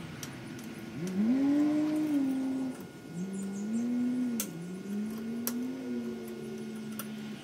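A few long held notes that glide gently up and down like a slow tune. They are the loudest sound, and their source is unclear. Under them come a couple of sharp clicks from a screwdriver tightening the voltage regulator's mounting screws.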